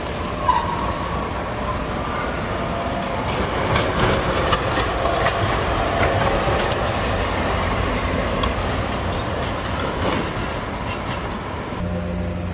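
An articulated tram passing close by, its steel wheels rumbling and clacking over rail joints and points, with a faint squeal in the middle as it takes the curve. A steady low hum comes in near the end.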